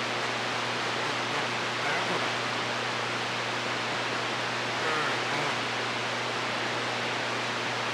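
CB radio receiver hissing with steady band static between transmissions, with a low hum under it and faint, weak voices barely showing through the noise.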